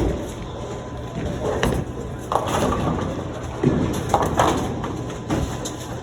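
Bowling alley clatter: a thud, then pins crashing and balls rolling on nearby lanes over a steady hum of background voices.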